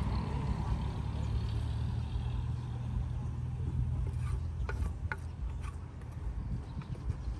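A motor vehicle's engine idling with a steady low hum. A few light clicks and clinks come about four to six seconds in.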